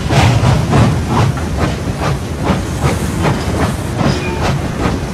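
Steam locomotive chuffing steadily, about three exhaust beats a second, over the low rumble of the train.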